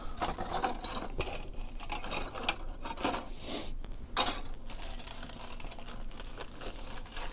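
Plastic model-kit parts trees being handled: irregular light clicks and rustling of plastic pieces, with a few sharper clacks as parts are set down.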